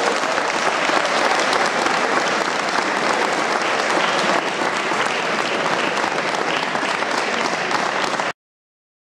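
Audience applauding steadily, which cuts off suddenly about eight seconds in.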